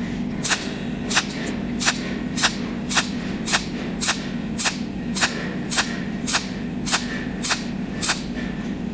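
Cold welding machine firing its torch in pulses, a sharp snap roughly every 0.6 s, each pulse laying one overlapping weld spot along a seam. A steady low hum runs underneath.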